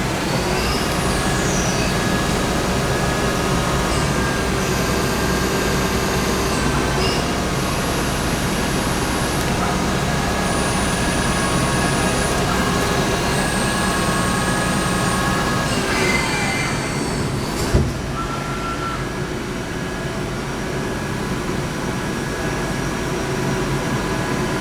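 1997 Traub TNE 300 CNC lathe running: a steady mechanical hum with whining drive tones that shift pitch in steps every few seconds. About two-thirds of the way through comes a short gliding whine, then a single sharp knock.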